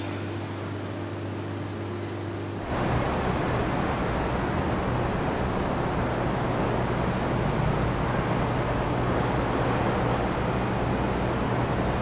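Steady city traffic rumble and hiss that cuts in suddenly about three seconds in, replacing a quieter low room hum.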